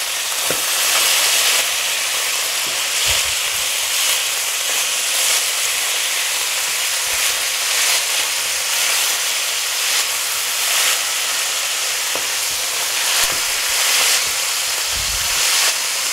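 Skin-on chicken drumsticks and thighs sizzling steadily as they brown in hot olive oil in a frying pan, with a few soft knocks as the pieces are turned with tongs.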